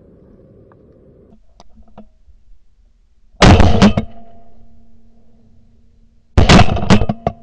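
Two shotgun blasts about three seconds apart, each loud and sharp with a short echo after it.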